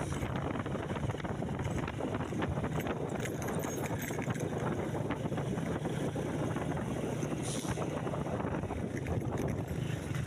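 A vehicle's engine running steadily on the move, with constant rattling and wind noise on the microphone.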